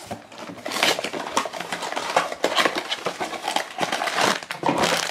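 Small cardboard blind box being pulled out of a display case and torn open by hand: a busy run of cardboard scraping, rustling and small knocks.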